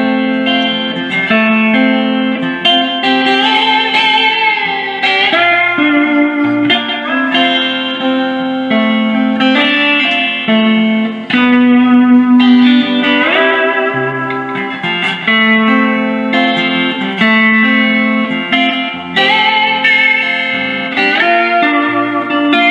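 Live instrumental music: an electric guitar lead over held chords and a bass line, its melody notes sliding up and down in pitch in a slide-guitar style.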